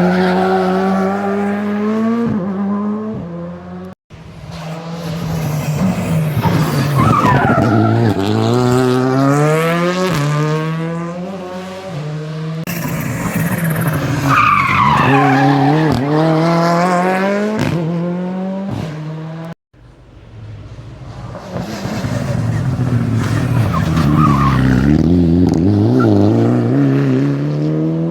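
Rally cars at full throttle on a tarmac special stage, engines revving hard, dropping back at each gear change and climbing again, with tyre squeal. The sound comes as four separate car passes, split by sudden cuts.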